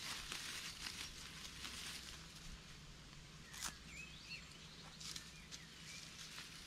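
Dry leaf litter on a forest floor rustling and crackling as a person steps and crouches in it, with one sharper crackle a little past the middle. A few short bird chirps come and go in the background.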